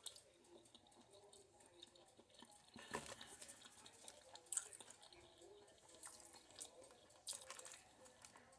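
Faint chewing: scattered wet mouth clicks and smacks over near silence, a few a little louder than the rest.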